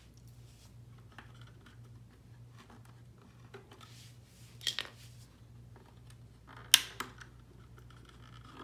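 Sharp plastic clicks and snaps as hands work the locking clips and push-fit tube fittings on a reverse-osmosis filter's valve. There is a pair of clicks about halfway through and a louder click a couple of seconds later, with faint handling rustle in between.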